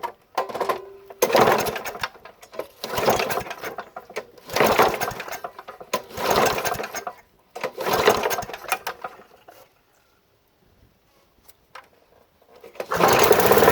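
Gas walk-behind lawn mower being pull-started: five pulls on the recoil starter about every second and a half, each turning the engine over briefly without it catching. After a pause, the engine starts near the end and runs steadily.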